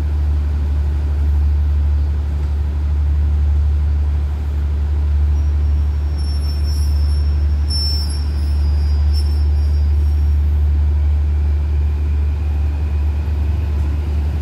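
Diesel engines of a stationary passenger train running at idle: a steady low hum. A faint high squeal, with a few short crackles, comes and goes in the middle.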